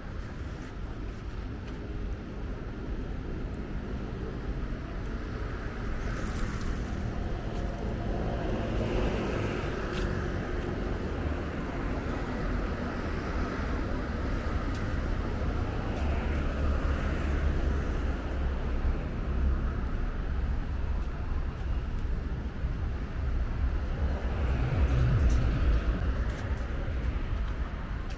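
Steady road traffic from a wide multi-lane avenue, a continuous rumble with passing cars swelling louder several times, loudest a little before the end.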